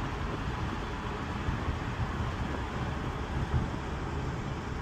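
Steady road and engine noise heard from inside a Holden VY Commodore's cabin while it drives, a low rumble under an even hiss.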